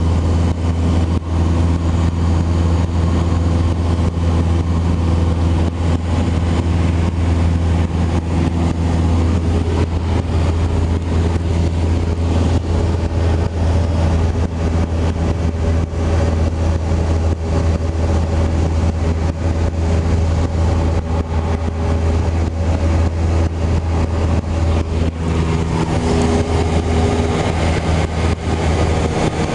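Cessna 172 Skyhawk's piston engine and propeller droning steadily in flight, heard from inside the cabin as a loud constant low hum with a rushing hiss over it. The tone shifts slightly near the end.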